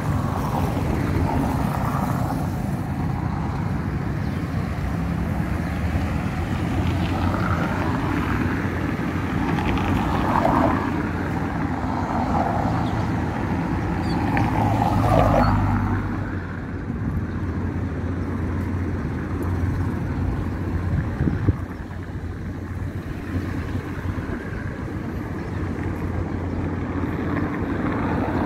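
Street traffic: cars passing one after another over a steady low rumble, the loudest pass about halfway through, then quieter.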